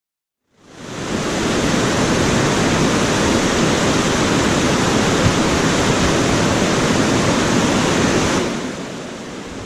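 Loud, steady rush of whitewater pouring over a low weir and churning in the wave at its foot, heard from a kayak sitting in the foam. It comes in about half a second in and drops noticeably near the end.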